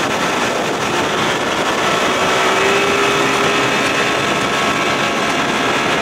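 1992 Johnson 60 hp two-stroke outboard running steadily under way at speed, sounding good.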